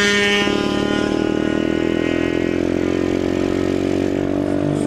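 Dirt bike engine held at high, steady revs. Its pitch shifts about half a second in, then sinks slightly.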